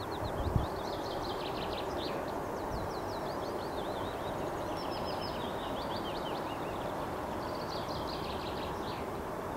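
Songbirds singing: repeated rapid trills of short, high, falling notes in phrases with brief pauses, over a steady background noise. A single low bump about half a second in.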